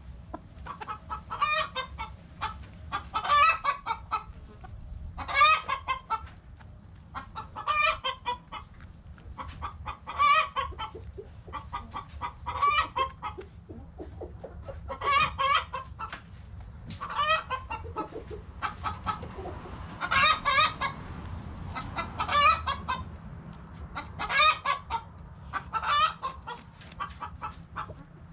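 Backyard chickens clucking in short bursts of quick clucks, about one burst every two seconds.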